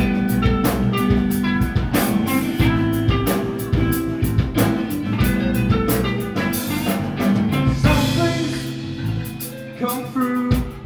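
Live post-rock band playing loudly: distorted electric guitar, bass guitar and a drum kit hitting several strikes a second. About eight seconds in a cymbal rings out and the playing thins out and gets quieter.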